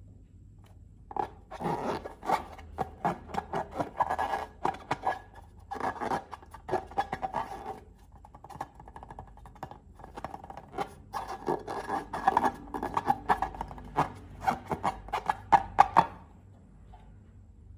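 Close-up slime-making handling sounds: rapid, sticky clicks and crackles in two bouts of about six seconds each, with a pause between them and the sound stopping near the end.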